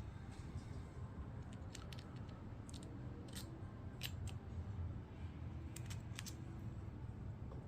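Scattered light clicks and ticks of small carburetor parts and tools being handled, mostly in the middle seconds, over a low steady hum.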